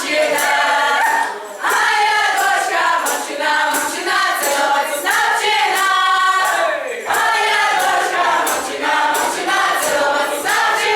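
A group of voices singing together as a choir.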